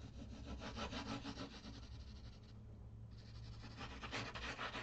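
Graphite pencil scratching back and forth on paper in quick zigzag strokes. There is a short pause a little past halfway, then the strokes come louder near the end.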